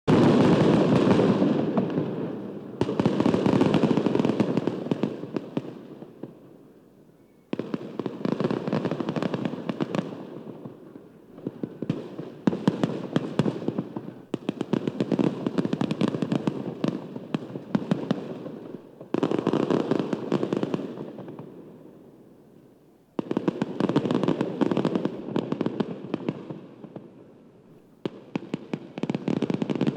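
Fireworks crackling in repeated volleys. About eight bursts of rapid popping each start suddenly and die away over a few seconds before the next begins.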